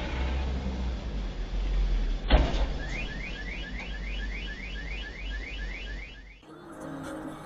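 A single loud crash-like bang about two seconds in, over a steady low vehicle rumble, followed by a car alarm chirping in a fast run of short rising whoops, about four a second, for roughly three seconds, as if set off by the impact.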